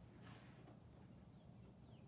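Faint bird chirps over a quiet background: a few short, quickly falling high notes in the second half.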